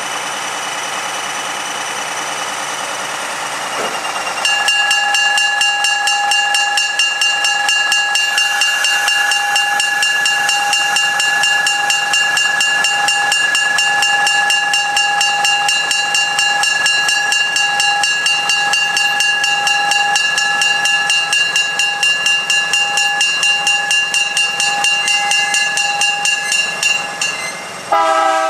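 Budd Rail Diesel Cars rolling past close by on curved track, the steel wheels giving a steady high-pitched squeal against the rail over fast, even clicking. The squeal grows louder a few seconds in and changes pitch briefly near the end.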